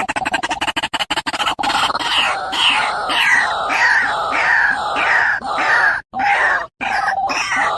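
White-breasted waterhen calling: a fast pulsing run at the start gives way to a string of harsh croaking notes, each falling in pitch, repeated about every half second and a bit, with short breaks near the end.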